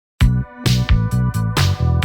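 Electronic background music that starts about a fifth of a second in, with a drum-machine beat, a deep bass line and sustained synth chords.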